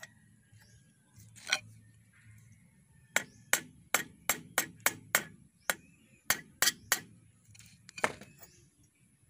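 A hammer striking a steel speargun spear shaft on a steel block, metal on metal: one blow, then about a dozen sharp ringing blows in quick succession from about three seconds in, and a last one near the end. The spear's barb is being hammered into place on the shaft.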